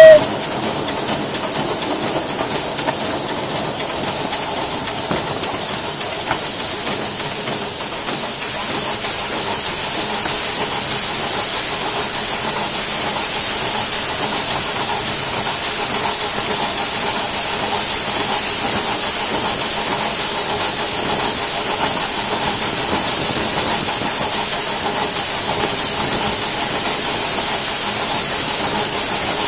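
Steady hiss of steam from a Crown two-foot-gauge steam locomotive running along the track, heard from the cab. Its whistle cuts off right at the start.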